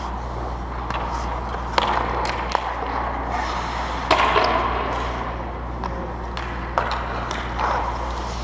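Ice hockey rink sounds: skate blades scraping across the ice and several sharp clacks of puck and sticks, the loudest crack about four seconds in, over a steady low hum.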